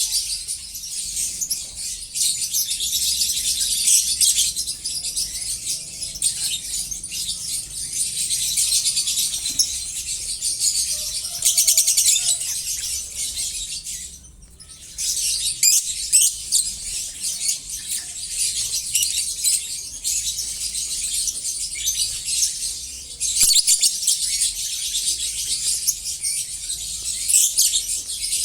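Many lovebirds chattering and chirping at once in a dense, high-pitched din that drops out briefly about halfway through.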